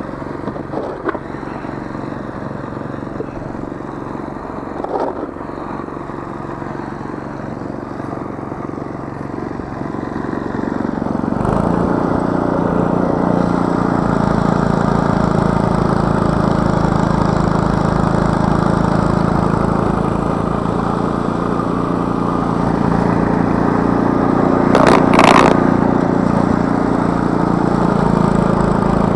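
Two-stage gas snowblower engine running steadily, getting louder and fuller about ten seconds in as the machine works through the snow, its auger and chute throwing snow. A brief rushing burst comes near the end.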